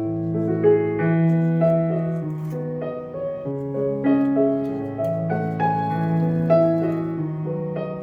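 Background piano music, slow held chords changing about every half second to second.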